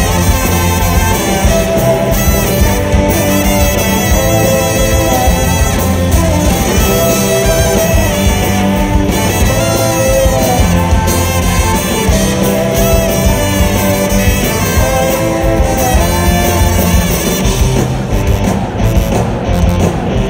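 Brass band playing loud and live: trumpet, trombone, saxophone and sousaphone over drums and electric guitar, the horns repeating a short riff about every two seconds.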